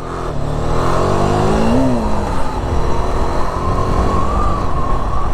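Motorcycle engine pulling away and accelerating, its pitch climbing over the first two seconds and then settling into a steady run, with a loud rush of wind and road noise.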